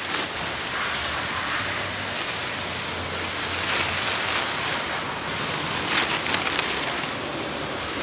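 Plastic shopping bags rustling and crinkling as they are packed into a car boot, with louder crackly bursts about halfway through and again a second or two later.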